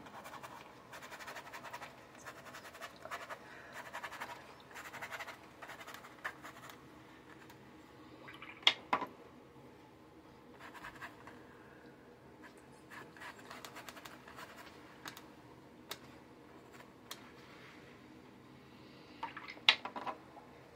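Faint scratching of a paintbrush scrubbing over watercolour paper, lifting back the wet paint, in soft uneven strokes. Two sharp taps stand out, about nine seconds in and near the end.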